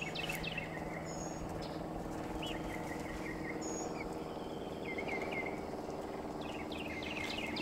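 Scattered short chirps and peeps from young chickens in the run, over a steady low hum.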